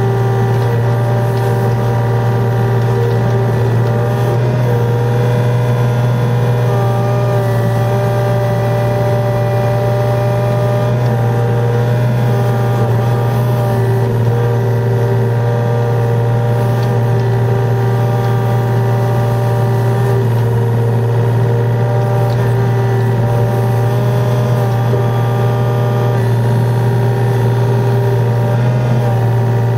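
Yanmar VIO35 mini excavator's three-cylinder diesel running steadily under digging load, with a deep engine hum and a hydraulic whine whose pitch shifts as the boom and bucket work.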